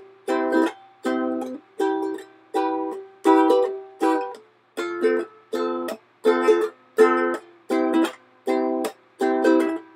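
Background music: a plucked string instrument strumming chords in a steady rhythm, about two strums a second.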